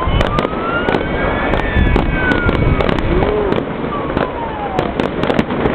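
Fireworks and firecrackers going off in quick succession: a dense run of sharp bangs and crackles over a steady rumble, with a few whistles gliding up and down in pitch.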